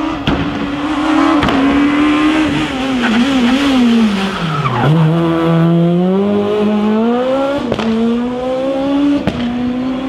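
Rally car engine at full racing volume. It drops in pitch and slows to its lowest about five seconds in, then accelerates hard with a steadily rising note, with a few sharp cracks along the way.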